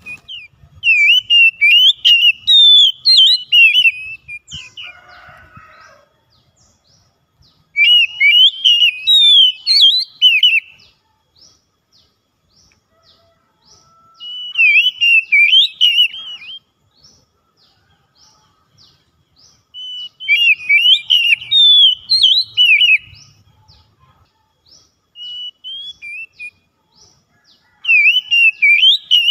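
Oriental magpie-robin (kacer) singing: about six bursts of loud, varied whistled phrases, each a couple of seconds long, with short pauses between.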